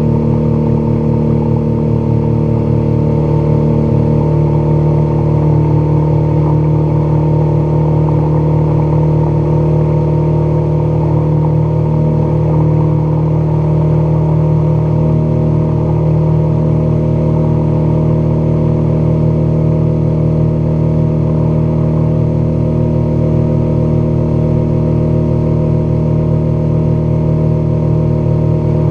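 Outboard motor pushing a small aluminum fishing boat at steady running speed: a constant engine drone that holds its pitch throughout.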